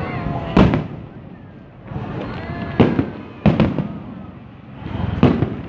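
Aerial fireworks display: four loud booming bursts at uneven intervals, each with a short echoing tail, over a continuous low rumble of more distant shells.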